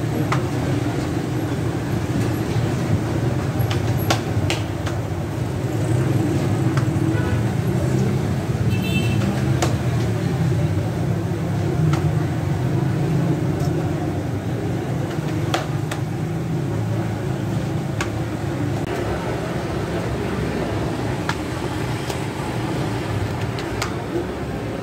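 Steady low rumble of a pedestal fan and shop noise, with a few short clicks and slaps scattered through it as roti dough is patted out and pressed onto the clay tandoor wall.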